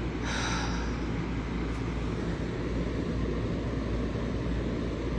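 A steady low rumble of background noise, with a brief hiss about half a second in.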